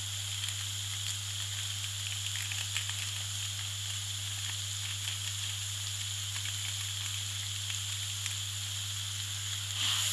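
Ground chilli and shallot spice paste frying in hot oil in a wok: a steady sizzle with faint scattered crackles over a constant low hum. Near the end the sizzle grows louder as a spatula starts stirring the paste.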